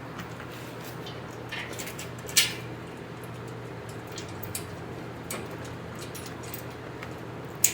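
Scattered light metallic clicks and clinks of bolts and washers being handled, with two sharper clicks, one about two and a half seconds in and one near the end, over a low steady hum.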